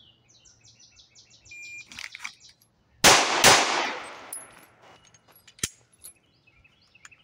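A shot timer beeps, and about a second and a half later a 9mm Arex Delta M pistol fires two quick shots about half a second apart, the loudest sounds here. This is a draw-and-fire run on a timer, with a 1.53-second draw to the first shot.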